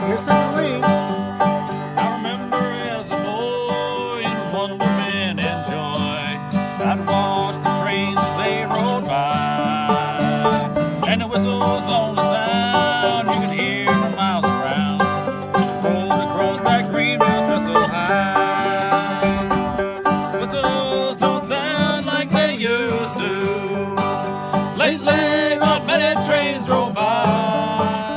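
Bluegrass-style country music with banjo and guitar playing, with many notes sliding up and down in pitch.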